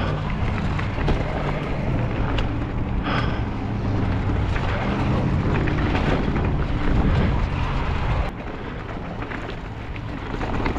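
Mountain bike riding down a rocky trail heard from a bike-mounted action camera: wind rushing over the microphone, with the tyres rolling over rock and the bike rattling in short clicks. The rush drops off suddenly about eight seconds in.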